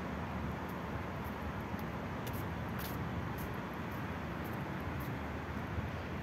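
Steady outdoor city ambience: a low rumble of road traffic, with light, high ticks at roughly two a second.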